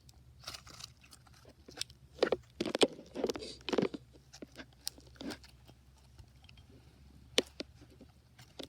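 Slime being squeezed and poked, making scattered sticky clicks and pops, with a louder run of squelching about two to four seconds in.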